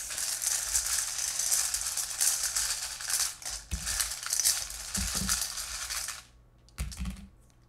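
Wooden letter tiles clattering and rattling as a hand stirs through them in a metal bowl; the clatter stops abruptly about six seconds in, followed by a couple of low knocks near the end.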